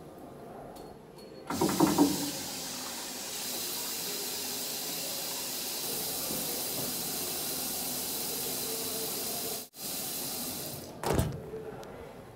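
Restroom sink tap running steadily, a rushing hiss of water for about eight seconds that cuts off abruptly. A short bump follows near the end.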